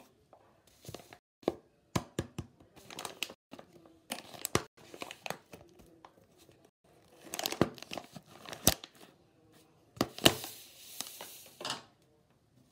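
A soft plastic wet-wipes pack with a plastic flip lid being handled: crinkling of the wrapper mixed with sharp clicks and taps. Near the end comes a longer tearing sound.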